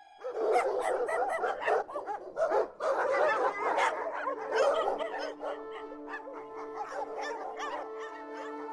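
A dog barking and woofing over and over for about four seconds, then a few sparser, higher yips, with background music holding steady notes under the later part.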